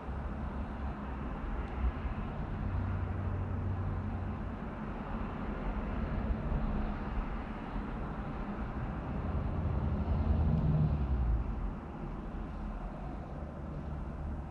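Low vehicle engine rumble heard from inside a stopped car, swelling twice: a few seconds in and again about ten seconds in.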